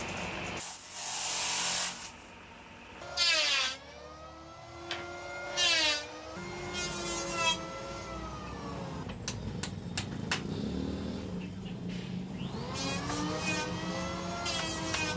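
An engine revving up and down several times, its pitch sliding, the loudest sounds here, with a short rush of noise about a second in. In the second half, sharp single hammer blows on nails as a small wooden frame is nailed together.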